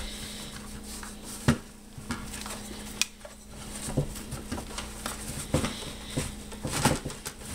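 Canvas magazine bandolier being pushed and wedged into a steel 40mm projectile ammo can: fabric rustling, with scattered knocks of the magazines against the can, thickening near the end as it is forced into place.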